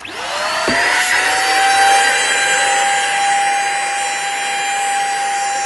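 Xiaomi Deerma DX700 vacuum cleaner switched on. Its motor whines up to speed within about a second, then runs steadily at full power with a rush of air. There is a short knock just under a second in.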